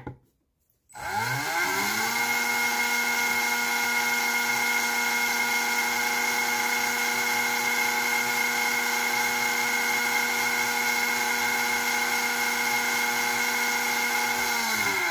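Sensored brushless RC car motor driven by a SkyRC motor analyzer: a click, then about a second in the motor spins up with a rising whine and holds a steady whine at constant speed while the analyzer measures the timing of each hall sensor. The whine starts to fall as the motor winds down at the very end.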